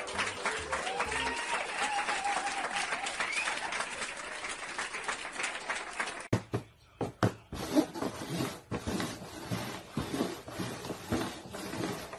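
Dense applause-like noise with a few gliding tones, cut off abruptly about six seconds in. It is followed by irregular light taps and knocks, fitting plastic cups being slid and set down on a table.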